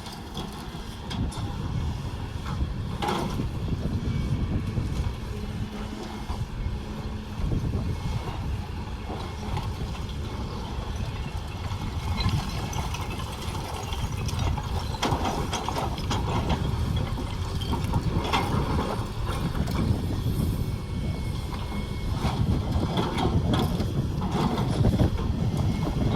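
Diesel earthmoving machinery running with a steady, low engine rumble, with occasional clanks and knocks from the machine at work.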